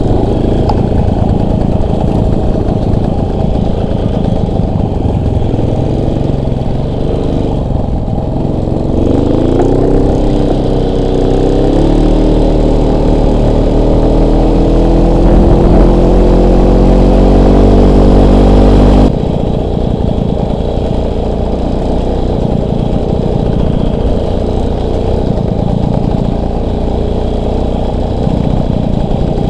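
Motorcycle engine running under way. From about nine seconds in, its note climbs steadily as it accelerates and gets louder, then drops off suddenly about two-thirds of the way through to a lower, uneven running sound.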